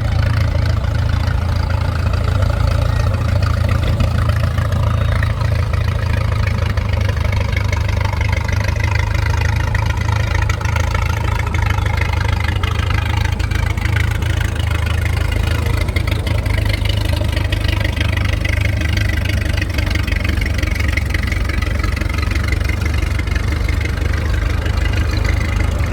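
Antique farm tractor engines running steadily as tractors drive past, a continuous low engine rumble.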